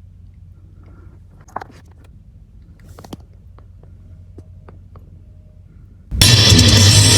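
A faint low steady hum with a few scattered small clicks and taps, then loud guitar music starts suddenly about six seconds in.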